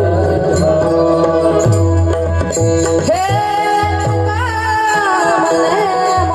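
Devotional kirtan singing with tabla: a man's voice glides up about three seconds in and holds one long high note over steady sustained accompaniment tones.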